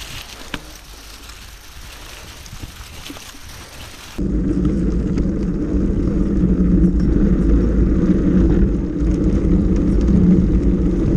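Mountain bike rolling along a leafy dirt trail with a few light clicks. About four seconds in, the sound turns abruptly loud: a dense low rumble with a steady hum from the tyres running over wooden boardwalk slats, picked up close to the front wheel.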